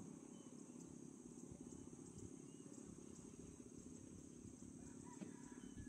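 Near silence: a faint, steady insect chorus, a high even drone, over a low rough background noise.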